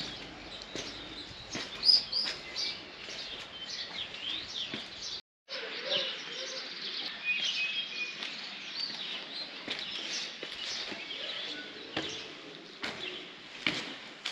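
Small birds chirping and singing outdoors, with many quick twittering calls overlapping. There is a sharp tap about two seconds in and a brief dropout about five seconds in.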